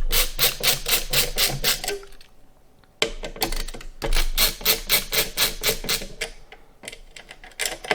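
Screws being backed out of the stock AM5 CPU-socket retention brackets with a screwdriver: two runs of rapid, even clicking, about six clicks a second, separated by a short pause about two seconds in.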